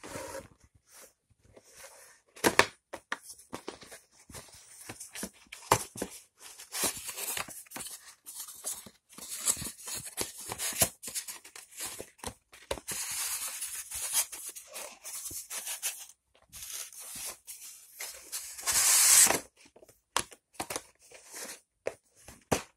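Cardboard model train kit boxes being handled: irregular rustling, scraping and sharp knocks. Longer scraping stretches come past the middle, and the loudest one comes near the end.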